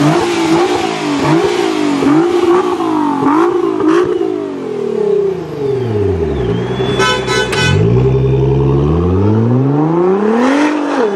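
Nissan GT-R R35's twin-turbo V6 through an Armytrix aftermarket exhaust, revved in a quick run of rising sweeps that each drop off sharply. It then falls away and climbs again in one long rise as the car accelerates. A brief high-pitched tone cuts in about seven seconds in.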